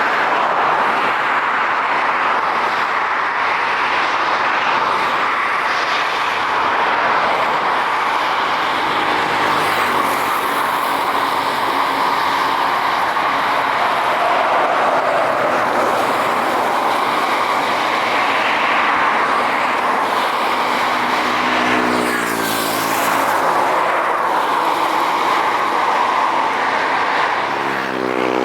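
A steady, loud roar of engine noise. About three-quarters of the way through, and again near the end, engine tones slide in pitch as something passes.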